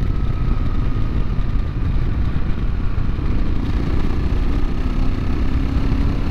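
Steady rumble of a motorcycle under way, with wind noise on the rider's helmet microphone.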